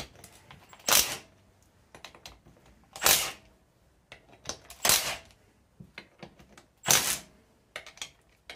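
Compact cordless power tool spinning out the 10 mm bolts of a Predator 212 engine's crankcase side cover in a crisscross pattern: four short whirring runs about two seconds apart, with small clicks of socket and bolts in between.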